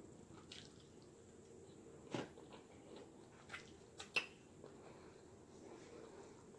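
Quiet mouth sounds of someone eating a salad: soft chewing with a few short sharp clicks and smacks, the loudest a little after four seconds in.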